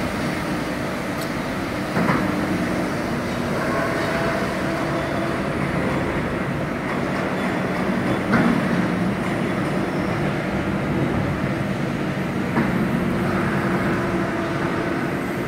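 Steady hum of a running hydraulic CNC press brake, with a few short knocks.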